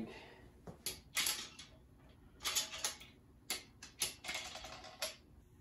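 Socket ratchet clicking as the main bearing cap bolts of a 6.0 LS engine block are run down, in a few short runs of rapid clicks with pauses between.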